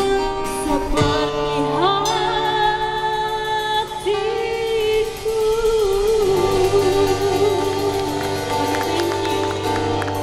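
A woman singing live with a band, holding a long wavering note through the middle of the passage over guitar and drum accompaniment.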